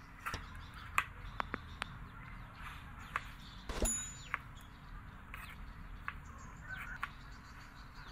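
Kitchen knife slicing a bell pepper against a plate: irregular sharp clicks and taps, the loudest a little under four seconds in, with birds chirping in the background.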